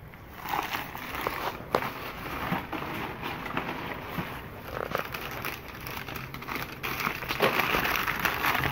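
Wrapping paper crinkling and rustling as packed pieces of china are unwrapped by hand, with small crackles throughout, louder near the end.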